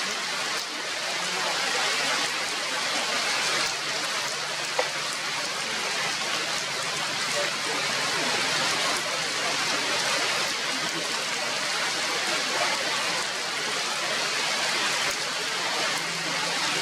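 Steady rain falling on tree foliage, with one sharp click about five seconds in.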